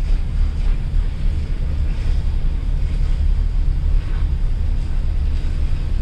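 Wind buffeting the microphone in a steady low rumble, over the noise of a ship under way on the water.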